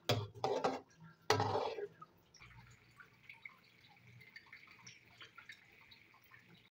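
A spatula stirring and scraping in a metal pot of watery meatball curry, several quick strokes over the first two seconds. Then faint bubbling and crackling as the gravy heats over a high flame toward the boil.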